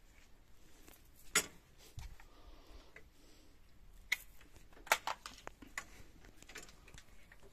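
Scattered light clicks and knocks as the awning's metal hand-crank rod is taken in hand and handled, a few sharper ones about a second and a half, four and five seconds in.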